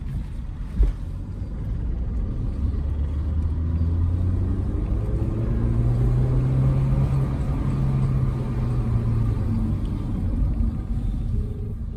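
Car engine and road rumble heard from inside the cabin, the engine drone climbing in pitch a few seconds in as the car picks up speed, then easing near the end. A single short thump about a second in.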